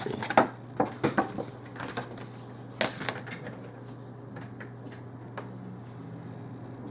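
Trading cards being handled: a quick run of small clicks and taps, a louder rustle about three seconds in, then a few faint ticks over a low steady hum.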